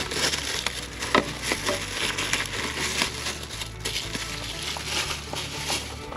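Packaging crinkling and crackling as it is handled: a dense run of irregular crackles, with a sharper snap about a second in.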